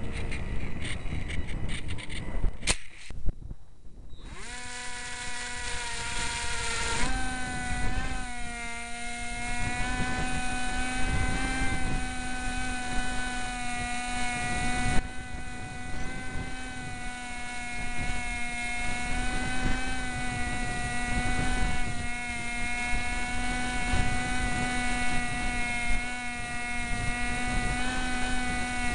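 Electric motor and propeller of a Cox SkyCruiser RC plane, heard from the onboard camera, running at near full power with a steady whine over wind rush. The whine drops away briefly about three seconds in, then comes back and holds steady.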